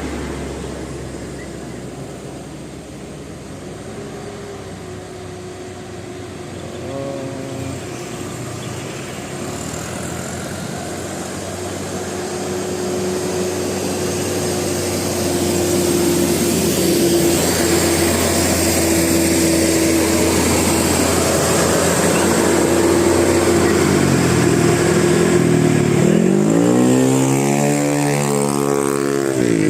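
Bus basuri multi-tone air horn with roof trumpets, over running engine and traffic noise: one steady held note for a long stretch, then several notes bending up and down in a warbling tune near the end, the loudest part.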